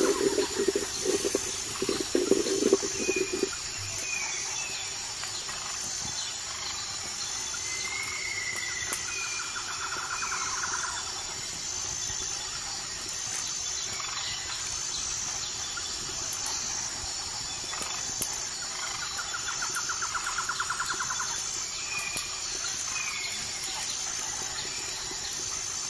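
Insects chirping steadily in a high, evenly pulsing trill, with a few short bird chirps and two brief buzzing trills. For the first few seconds a metal spatula scrapes and stirs in an aluminium cooking pot.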